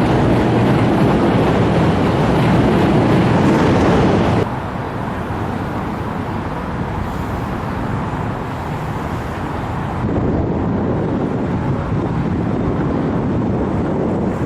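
City street traffic noise, loud for the first few seconds, then cutting suddenly to quieter traffic, with another sudden change about ten seconds in.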